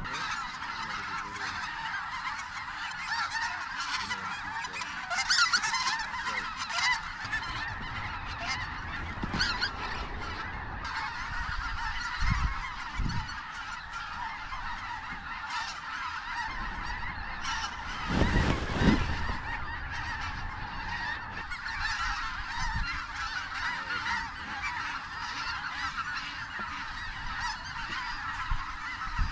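A large flock of snow geese calling overhead: a continuous clamour of many overlapping honks and yelps. Two brief low rumbles break in, about twelve and eighteen seconds in.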